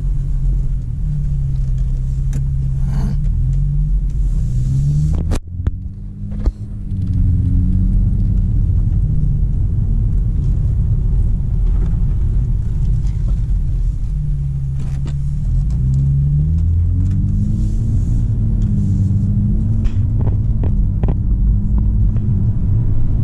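Engine of a stage 1 tuned BMW heard from inside the cabin while driving off: a low steady drone whose pitch climbs and falls back several times as the car accelerates and shifts gear. There is a brief dip in level with a couple of clicks about five seconds in.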